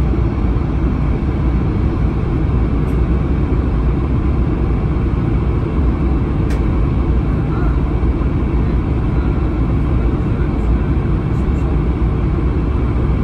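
Steady cabin noise inside a Swiss Airbus A220-300 descending on approach: the rush of airflow over the fuselage and the drone of its Pratt & Whitney PW1500G geared turbofan engines, heavy in the low end and unbroken.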